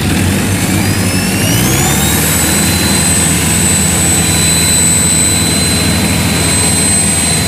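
Engine of a loaded tracked rice-hauling cart revving up about a second and a half in, with a turbocharger whine that rises and then holds a high steady pitch. The engine is working hard to drag the cart through sticky, boggy paddy mud.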